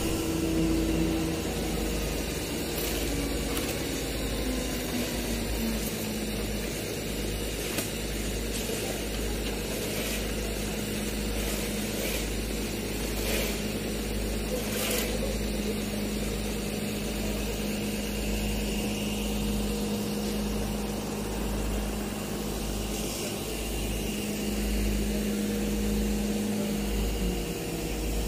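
Construction machinery engines running steadily during a concrete pour, a steady hum over a low pulsing throb. A few faint knocks come in the first half.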